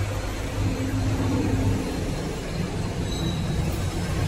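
Steady low mechanical hum of a hydraulic CNC turret punch press running without punching, with no strikes.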